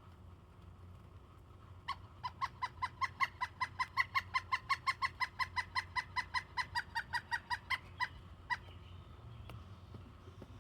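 Pileated woodpecker calling: a long series of evenly spaced loud notes, about five a second, lasting some six seconds, with one last note after a short pause.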